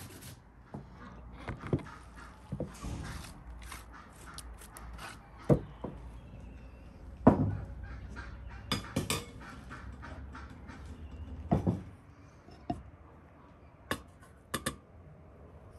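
Food-preparation handling sounds: a hand grater scraping at the start, then knocks and clinks of bowls and dishes set down on a wooden table, the loudest about seven seconds in. A few light clicks near the end come as a wooden spoon scoops flour into a metal cup.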